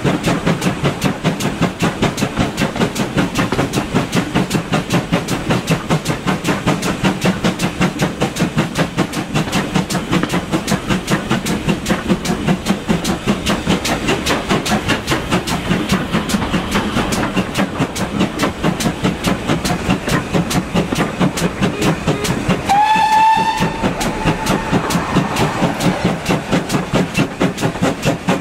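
GWR 4200 Class 2-8-0T tank engine no. 4247 working hard up a gradient, heard from the coach behind: a rapid, even beat of exhaust chuffs over the clatter of the wheels. About three-quarters of the way through, its whistle sounds once, briefly, starting with a quick rise in pitch.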